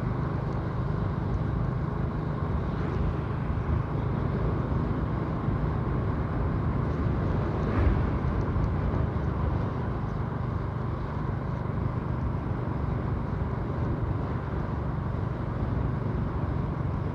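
Steady engine hum and road noise from a vehicle driving at an even speed, heard from on board.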